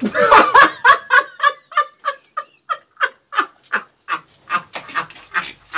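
Two men laughing hard: a loud outburst, then a long run of short, even ha-ha pulses, about four to five a second.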